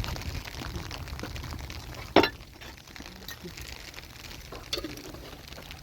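One loud, sharp clink about two seconds in, with a couple of fainter knocks later, over a steady low rumble.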